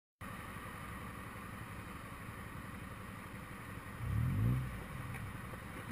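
Motorcycle engine idling at a standstill, with an engine briefly revving up, rising in pitch, about four seconds in.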